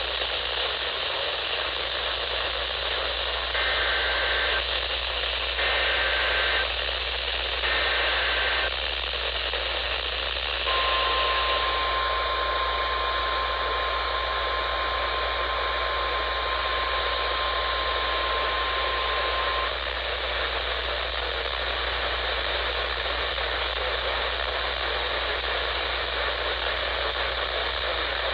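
Weather-radio Emergency Alert System broadcast over steady radio static: three short bursts of two-tone data header about a second apart, then the long, steady 1050 Hz warning alarm tone for about nine seconds, which announces that a warning follows.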